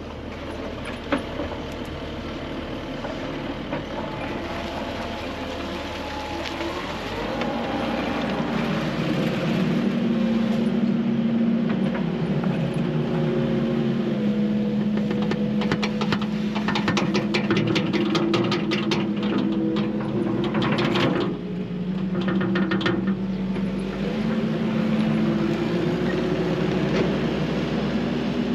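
Kubota SVL compact track loader's diesel engine running under load and speeding up about seven seconds in as it works a full bucket of topsoil. A spell of rapid clicking and rattling comes through in the middle.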